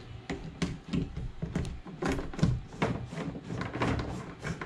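Handling noise: a run of irregular light clicks and taps as a transducer cable is pushed through a rubber seal against the plastic kayak deck.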